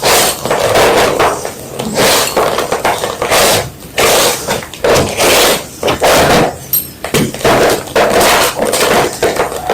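A block of white gym chalk being crunched close to the microphone: a rapid run of loud, crisp crunches, roughly one or two a second, as the chalk breaks apart.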